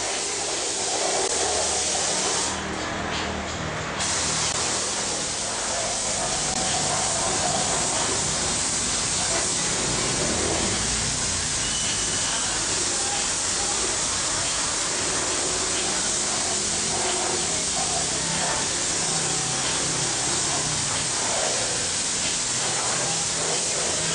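Compressed-air paint spray gun hissing steadily as it sprays paint onto a steel vehicle chassis frame, with a short easing of the hiss about three seconds in.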